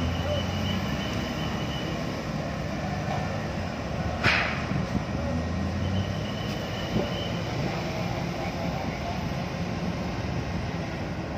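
Heavy-haul transporter carrying a power transformer, its engine running with a steady low rumble as it climbs the ship's loading ramp. A high thin whine comes and goes twice, and there is one sharp metallic clank about four seconds in.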